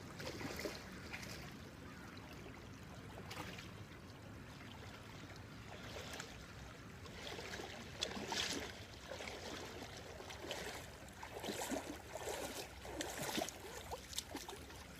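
Shallow creek water running, with irregular short splashes and rustles that come more often in the second half.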